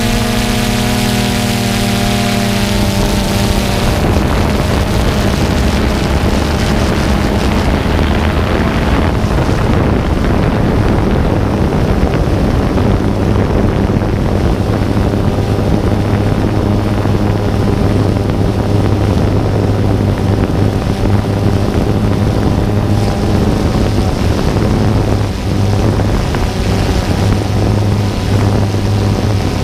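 A small aircraft's motor and propeller, recorded by the camera on board, running steadily with wind rushing past. The motor's tone shifts about four seconds in, and the hiss eases after about nine seconds.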